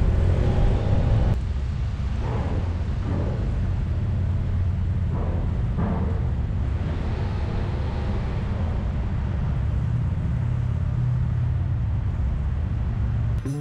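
BMW F800GS motorcycle's parallel-twin engine running at low speed as the bike rolls onto a ferry's car deck, a steady low rumble.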